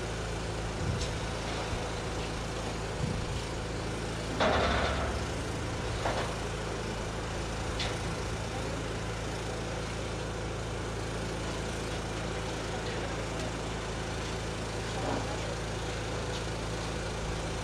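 An engine runs steadily at idle, with a louder clank about four and a half seconds in and a few lighter knocks and clicks of steelwork.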